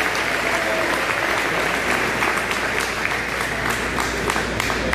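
Audience applauding, thinning to a few separate claps near the end.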